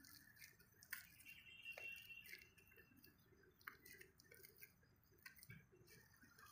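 Near silence, with faint scattered crinkles and ticks of hands crumbling bait in a plastic bag.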